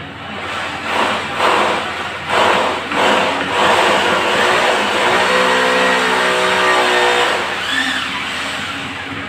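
Electric drill drilling into the wall, coming on in uneven surges and then running at a steady pitch for a couple of seconds past the middle before easing off.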